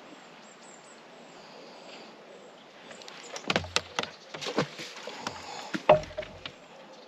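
Quiet outdoor background, then from about three seconds in a run of clicks and knocks as fishing tackle is handled on the seat box, with the loudest thump about six seconds in.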